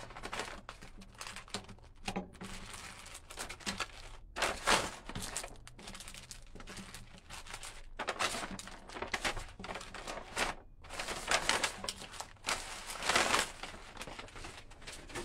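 Packaging crinkling and rustling in irregular bursts as it is gathered up and handled, with a plastic mailer envelope being handled near the end.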